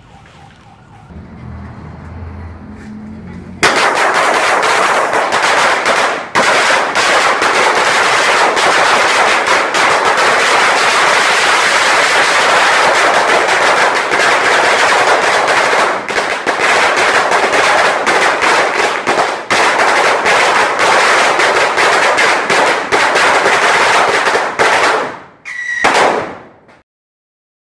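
A sawa, a long belt of small firecrackers, going off in a continuous rapid crackle of bangs for about twenty seconds. It starts a few seconds in, stutters briefly near the end, and stops abruptly.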